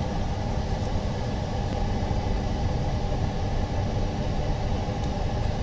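Steady low mechanical hum and rumble of machinery running, with a few faint steady tones in it.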